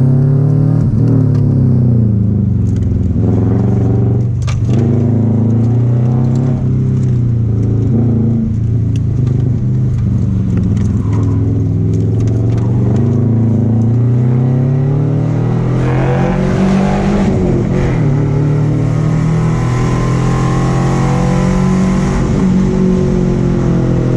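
A Subaru Impreza 2.5 RS's 2.5-litre flat-four engine heard from inside the cabin, revving up and down again and again as the car is driven hard through an autocross course.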